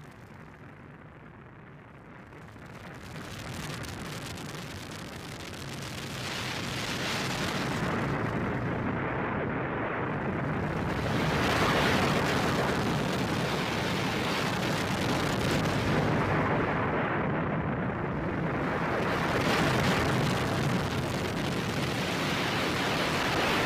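Harsh noise drone from a Eurorack modular synthesizer, a self-FM'd oscillator and cross-modulated filters feeding back into a Big Muff fuzz with auto-pan and stereo delay. Dense distorted noise with a low steady hum underneath; it grows louder over the first several seconds, and its treble sweeps in and out about every eight seconds.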